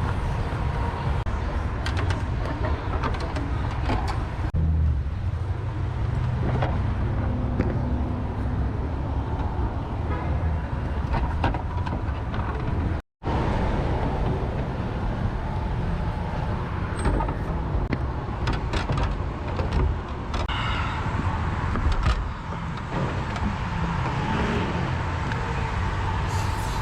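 Steady road-vehicle and traffic rumble with scattered light clicks, cut off by a brief dropout to silence about halfway through.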